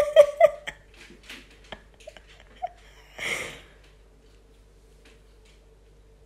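A person's short laugh and breaths, with a few light ticks of a small dog's claws on a wooden floor. A breathy huff comes about three seconds in, then only a faint steady hum.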